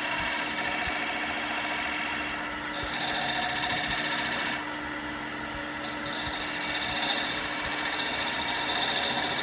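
Wood lathe running steadily, its electric motor and spinning workpiece giving a constant hum with a high whine. The whine briefly softens a little past the middle.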